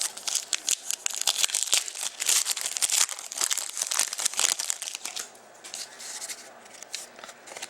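Wrapper of a Panini hockey card pack crinkling and tearing as it is opened and handled, dense and crackly for about five seconds, then dropping to lighter rustling with a few clicks.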